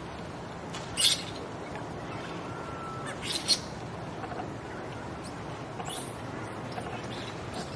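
Baby macaque giving a few short, shrill squeals, the loudest about a second in and a double one near the middle, with fainter ones later.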